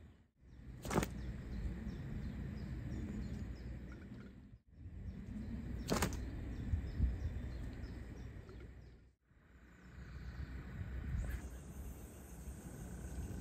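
A carp rod being cast twice, about five seconds apart, each cast a brief sharp whoosh of the rod and line.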